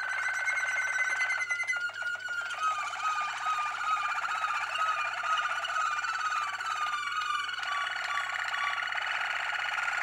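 Caged canary singing a long, unbroken song: a steady high trill for about two seconds, then a wavering, rippling roll, with a second higher trill joining near the end.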